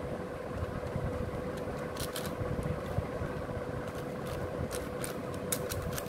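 Plastic 6x6 Rubik's cube being turned by hand: sharp clicks of the layers snapping round, a pair about two seconds in and several more near the end, over a steady background rumble with a constant hum.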